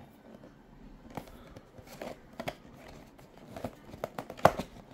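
Small cardboard box handled and turned over in the hands: scattered light taps, rubs and scrapes of fingers on card, the sharpest tap near the end.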